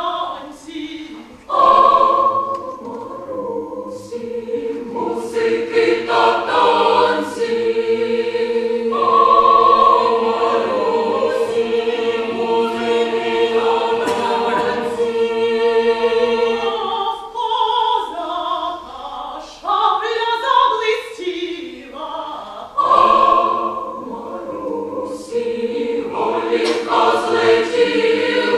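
Women's choir singing a slow piece in long held chords together with a solo female voice.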